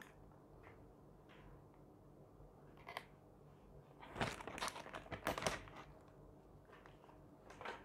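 Clear plastic bag crinkling in short bursts as an air-purifier filter is handled inside it, after a quiet start with a single click about three seconds in.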